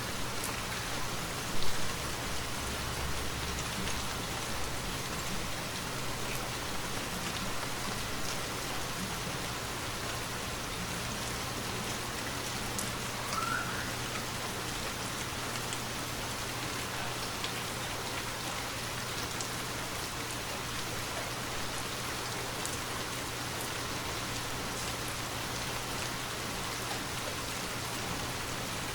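Steady rainfall, an even hiss of many drops, with one brief, louder tap a little under two seconds in.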